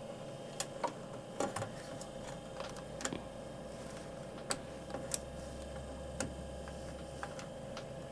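Diesel air heater in its start-up phase: a steady low hum that grows stronger about halfway through, with light clicks at irregular intervals.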